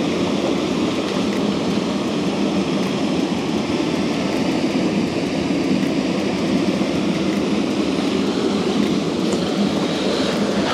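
Steady rush of water pouring over a mill weir into the pool below.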